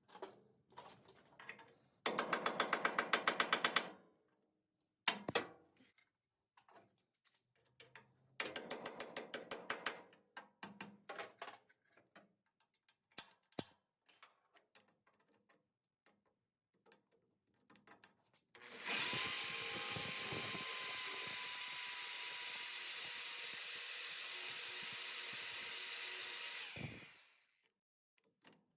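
Power drill drilling out spot welds in sheet steel: two short bursts with a rapid pulsing chatter, a few scattered knocks, then a steady run of about eight seconds with a faint whine that sags slightly in pitch.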